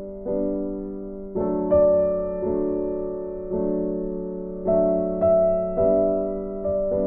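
Background music: slow, gentle piano chords, each struck and left to fade, about one a second.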